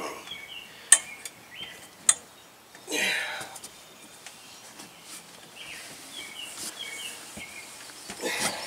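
A man moving on a travel trailer's roof and rear ladder: two sharp knocks about a second apart, then a brief scuffing rustle. Birds chirp faintly in the background.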